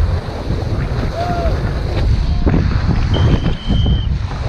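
Strong wind buffeting the microphone with a steady low rumble, while choppy water slaps and splashes close by, with a few sharper splashes a little past halfway.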